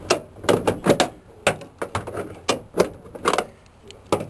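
About a dozen sharp, irregular metal clinks and knocks from steel door-hinge parts, the pin and bushing, being worked loose with vice grips and hand tools.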